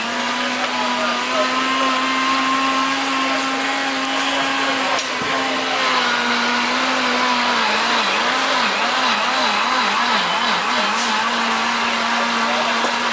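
Electric blender motor running steadily at full speed. Past the middle its pitch wobbles rapidly up and down, about three times a second, for a few seconds, then settles again.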